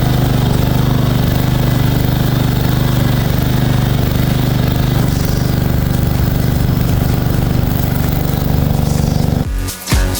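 Lawn mower engine running steadily. It cuts off about a second before the end, and background music with a beat takes over.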